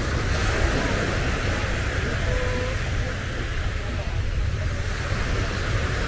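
Beach ambience: surf washing on the shore with indistinct voices of people, and wind buffeting the microphone as a steady low rumble.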